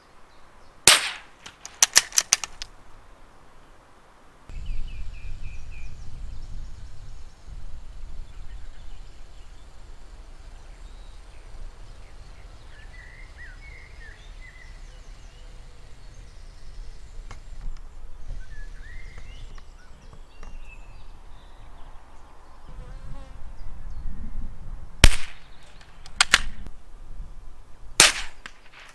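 Sharp .22 LR rifle shots: one about a second in and a quick cluster of cracks just after, then three more shots spaced a second or two apart near the end. Between the shots, low wind rumble on the microphone.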